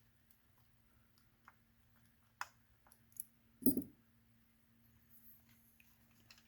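Faint handling noises from small parts being worked on: a few sharp little clicks, then a soft knock about three and a half seconds in, over a faint steady hum.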